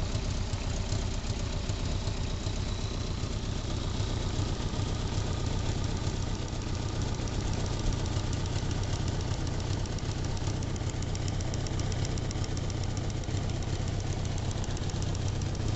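Fuel-injected Honda Gold Wing 1200 flat-four engine idling steadily. A fast, even ticking rides over it, most plainly in the second half, and it has a minor exhaust leak.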